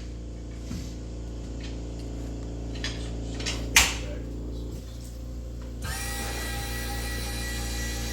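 A steady low hum, a sharp knock a little before four seconds in, then a small electric motor switching on about six seconds in and running steadily.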